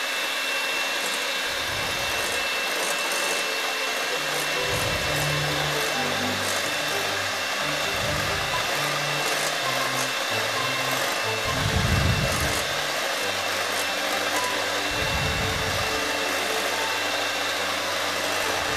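Electric hand mixer running at medium speed, its beaters whipping egg yolks and sugar in a glass bowl: a steady motor whir with a thin high whine, starting abruptly.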